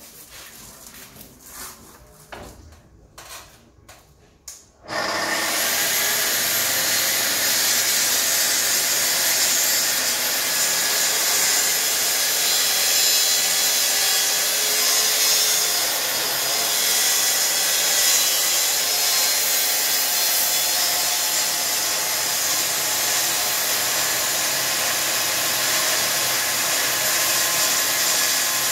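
A few light knocks of handling, then about five seconds in a Festool plunge saw and its connected dust extractor start and run steadily, the saw blade cutting a groove along the bottom edge of a timber door.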